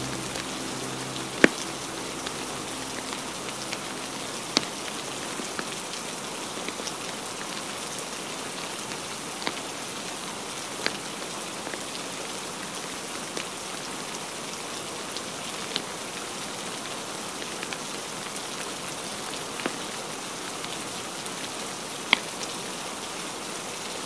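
Steady rain hiss with scattered sharp pops from a crackling log fire, the loudest about a second and a half in and another near the end.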